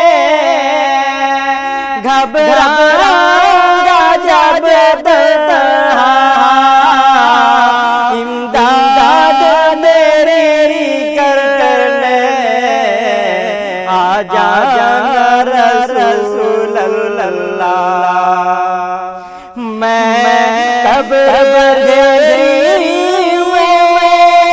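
Wordless sung passage of a devotional naat: a voice carries a wavering, ornamented melody over a steady held drone note, which stands alone for the first couple of seconds and again in the last few.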